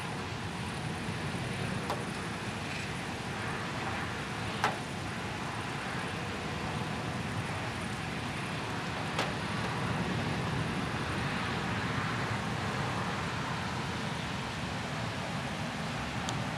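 Steady, low, rumbling outdoor noise with a few sharp clicks, four in all, the loudest a little over four seconds in.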